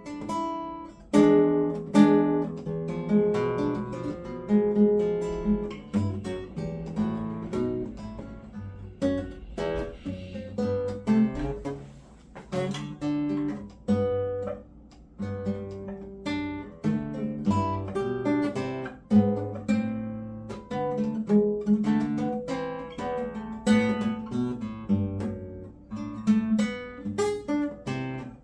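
Acoustic guitar played continuously, a run of picked notes and chords that ring on between attacks.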